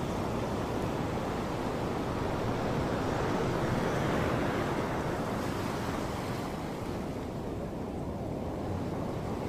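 Ocean surf breaking and washing up a sandy beach, swelling a few seconds in and easing again, with wind buffeting the microphone.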